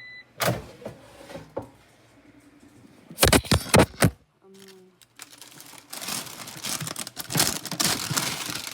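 Kitchen handling sounds while preparing food: a click, a quick run of loud knocks about three seconds in, then continuous rustling and crinkling from about six seconds on.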